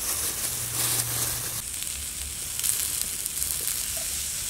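Squirrel meat sizzling in a frying pan over a campfire: a steady hiss with small crackles.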